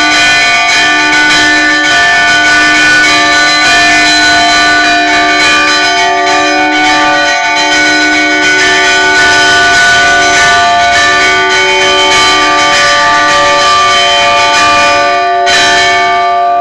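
Several church bells, rung by hand by pulling ropes on their clappers, clanging together in a continuous peal with overlapping tones, heard from close up inside the bell chamber. Near the end the striking stops and the bells hum on.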